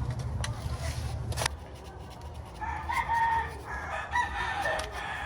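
A rooster crowing in a long, broken call from about two and a half seconds in. Before that, a low hum runs and cuts off with a click about a second and a half in.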